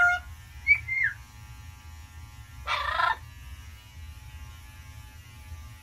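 Double yellow-headed Amazon parrot giving short calls: a brief whistled note that rises and falls about a second in, then a short raspy squawk around three seconds in, over a steady low hum.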